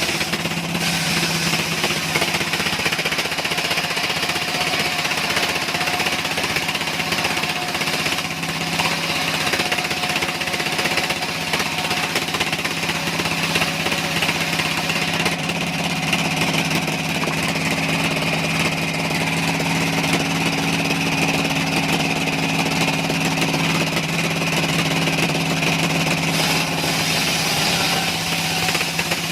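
Engine-driven sawmill machinery running steadily, a constant-pitched engine hum with a second steady tone joining about halfway through.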